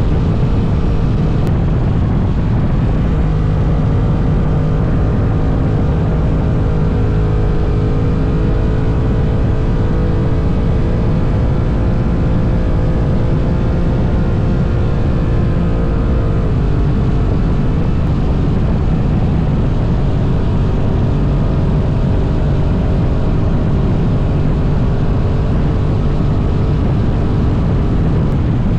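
Honda NT1100 motorcycle at high speed (around 180 km/h): a steady rush of wind noise, with the parallel-twin engine running underneath. The engine note dips slightly a little past halfway.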